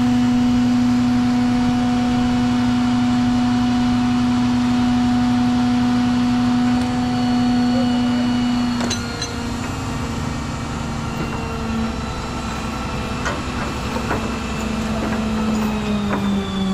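Large diesel engine of a mobile crane running at raised revs under a lifting job. It holds a steady pitch, then eases down a little with a knock about nine seconds in, and sinks lower near the end, with a few light clanks in between.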